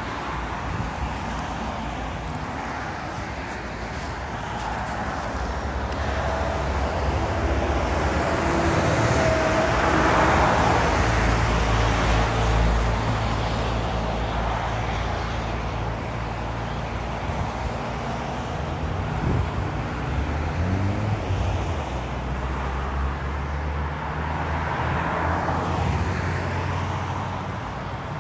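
Motorway traffic passing: a continuous rush of tyres and engines that swells as vehicles go by close, loudest about ten seconds in and again near the end.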